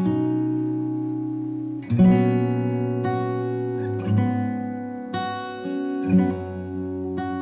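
Background music: acoustic guitar playing slow, ringing chords, a new chord struck every second or two.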